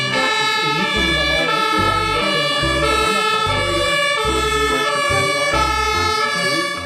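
Electronic music: a bright melody of stepped, held notes over a regular bass beat, cutting off abruptly at the end.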